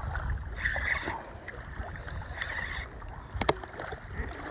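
Water lapping and sloshing at the river's edge, with wind rumbling on the microphone and one sharp click about three and a half seconds in.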